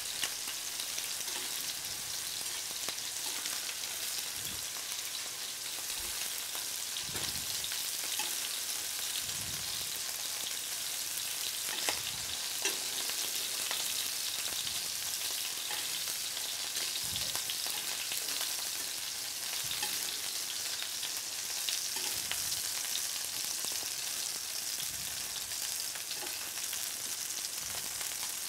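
Turbot fillet, sage leaves and Norway lobster tails frying in butter in a nonstick pan: a steady sizzle, with a few faint clicks here and there.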